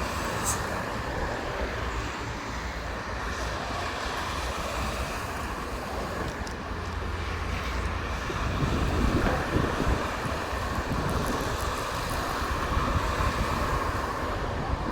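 Wind buffeting the microphone over a steady low rumble, getting louder about halfway through.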